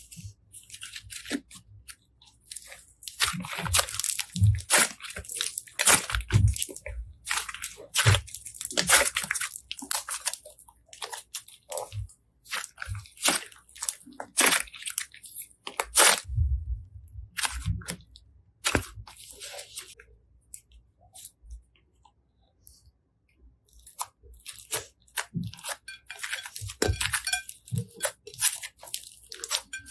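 Slime being pressed and squished by hand, making crisp crackling and popping sounds in irregular runs, with a quiet pause about two-thirds of the way through.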